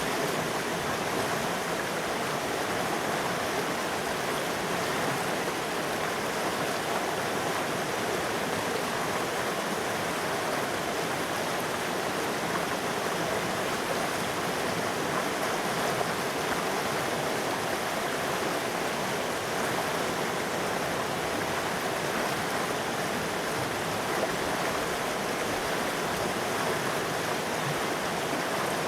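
River water rushing steadily over rocks, an even, continuous flow without breaks.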